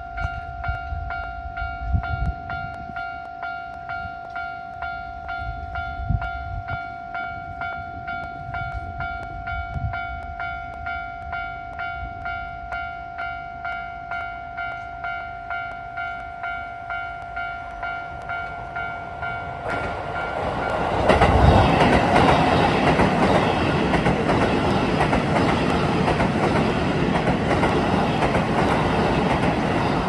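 Level-crossing warning bell ringing as a steady, evenly repeating electronic ding. About two-thirds of the way in, a Keisei 3000-series electric train arrives and runs close past, and its louder wheel and running noise covers the bell.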